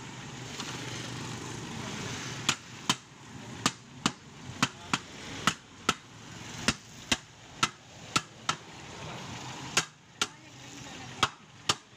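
Metal hammer striking the bead of a pay loader tire where it meets the steel rim, to break the bead loose from the rim: a run of sharp blows, about two a second with short pauses, starting a couple of seconds in.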